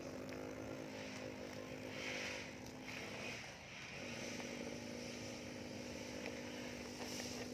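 Remote-control model excavator's electric drive running with a steady pitched hum, which stops for a moment a little over three seconds in and then starts again.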